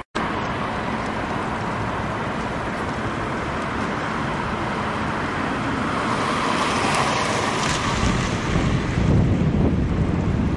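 Wind buffeting the microphone: a steady rushing noise after a brief cut at the very start, with heavier low gusts in the last few seconds.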